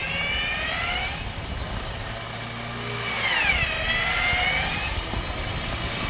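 Toyota Land Cruiser 100's 4.2-litre diesel running under load as the truck is pulled up a snowy bank on a line. Over it comes a high whine that rises in pitch near the start, then dips and climbs again about three to four seconds in.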